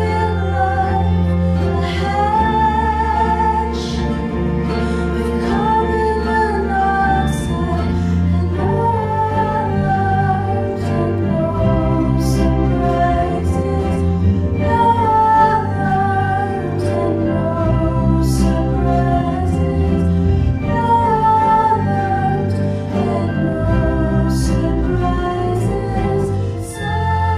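A live ensemble of keyboards and guitars playing steadily, with a woman singing the melody over it in repeated phrases.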